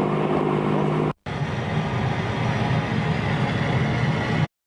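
A ship's horn sounds a steady low blast that cuts off about a second in. A dense rumbling noise follows and stops abruptly shortly before the end.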